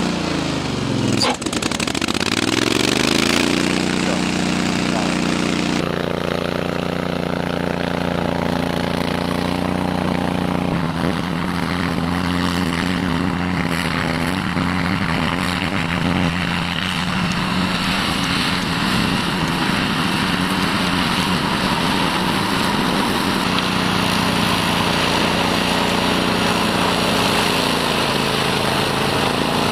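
Honda iGXV800 V-twin engine of a Stella URS100 tracked remote-controlled rotary mower running hard while the mower cuts through bracken. About a second in, the engine pitch drops sharply and then climbs back up.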